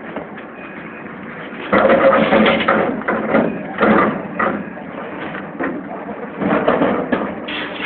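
Sheet metal crunching and scraping as the body shell of a scrapped Opel Astra GSI rally car is shoved into a pile of scrap cars by a forklift. It comes in loud, uneven bouts, the first about two seconds in, with another near the end.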